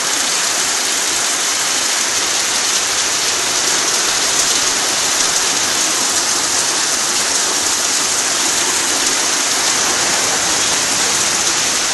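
Tropical rain shower falling steadily: an even, unbroken hiss.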